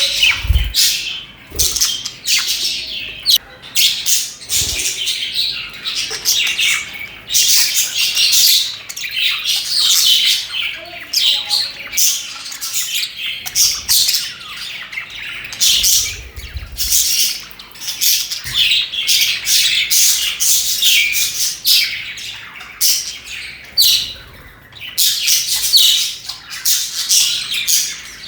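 A colony of budgerigars chirping and chattering, many birds calling over one another with sharp squawks mixed in.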